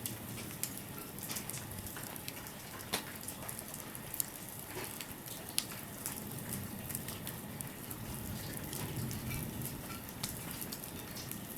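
Wood fire burning, crackling with scattered sharp pops over a steady low hiss.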